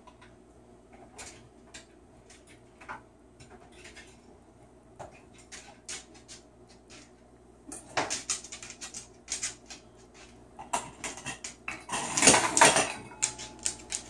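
A cockatoo's claws and beak clicking and tapping on a tiled floor among scattered toys and metal bowls. The clicks are sparse at first, cluster into a clatter about eight seconds in, and the loudest run of clattering comes around twelve seconds, as of dishes knocked about.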